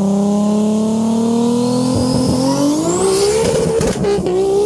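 A car's engine held at high revs through a burnout, its pitch climbing slowly, with the rear tyres spinning in smoke. A thin high whine rises over it about halfway through, and the engine note turns rougher near the end.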